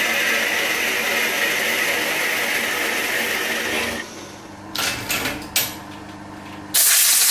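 Milling machine spindle running a boring head, the boring bar cutting a bore in a cast iron part with a steady whirring noise that stops about four seconds in. A few short knocks follow, then a loud hiss lasting about a second near the end.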